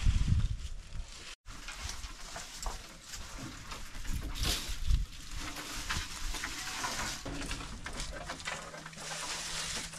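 A bundle of freshly cut leafy fodder branches rustling as it is set down and goats pull at the leaves, with scattered knocks and a heavy thump at the very start.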